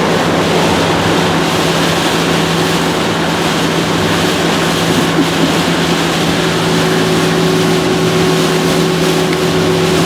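Camper driving on a highway in heavy rain: a steady wash of tyre and rain noise on wet pavement over a constant low engine hum, with a second, higher hum joining about two-thirds of the way through.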